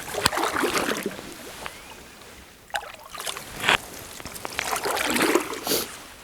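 Canoe paddle strokes in calm water: three splashing pulls, roughly two seconds apart.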